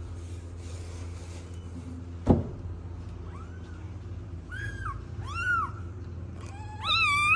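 Tabby cat meowing about four times in the second half: rising-and-falling calls that grow louder, the last one long. A single sharp knock about two seconds in, over a steady low hum.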